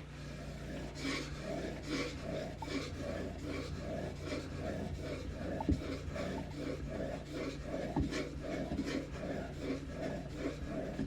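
A blade being rubbed back and forth on a waterstone: a rhythmic rasping scrape at about two to three strokes a second.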